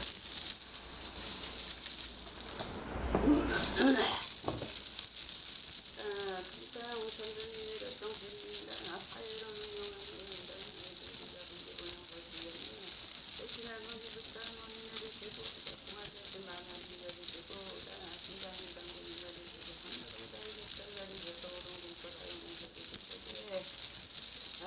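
A shaman's bell cluster is shaken without a break, a steady high jingling that stops briefly about three seconds in and then resumes. From about six seconds in, a soft chanting voice intones beneath the bells.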